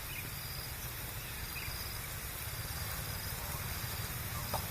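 Insects chirping in short, evenly repeated high-pitched pulses over a steady low rumble of outdoor noise.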